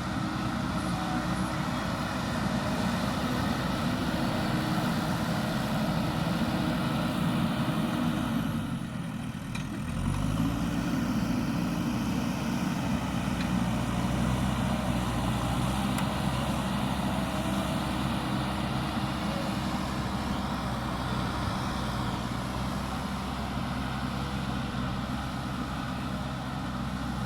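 JCB backhoe loader's diesel engine running steadily under work. It drops away briefly about nine seconds in, then revs back up and runs on.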